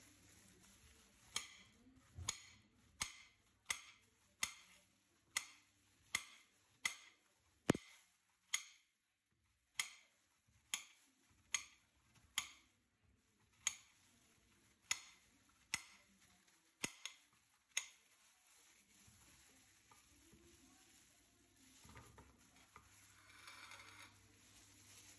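A kitchen knife slicing an unripe plantain into rounds on a ceramic plate, each cut ending in a sharp click of the blade against the plate. There are about twenty evenly spaced cuts, a little more than one a second, which stop about three quarters of the way through, leaving only faint handling noise.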